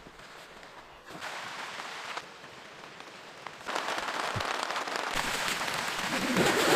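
Rain falling hard on a surface, a dense crackling patter. It starts suddenly about a second in, falls away briefly, then comes back louder and keeps building.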